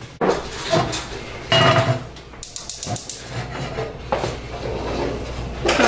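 Lodge cast iron skillet knocking and clanking against the iron grates of a gas stove as it is set down and moved into place. There are several separate knocks, and the loudest, a ringing clang, comes about a second and a half in.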